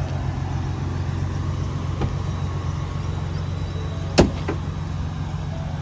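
Ford F-150 Raptor's engine idling steadily as a low hum, with a sharp click about four seconds in.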